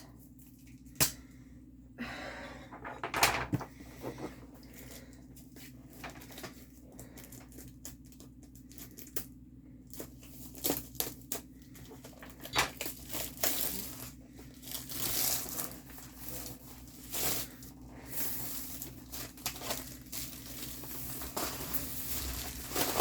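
Packaging of a diamond-painting kit box being handled and unwrapped: irregular crinkling, rustling and tearing, with scattered sharp clicks, busier in the second half.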